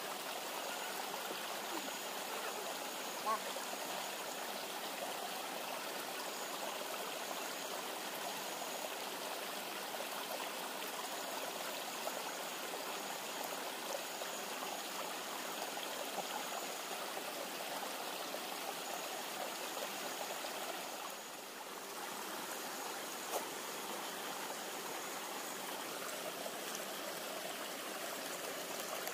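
Steady rush of river water flowing, with a faint high-pitched trill coming and going and a couple of soft ticks.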